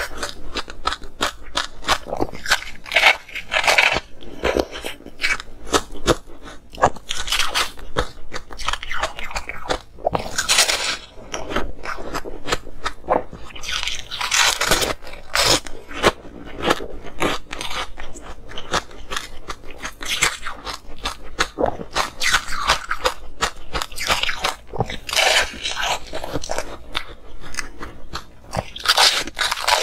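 Close-miked biting and chewing of ice: dense, continuous crunching and cracking as chunks are bitten off and ground between the teeth.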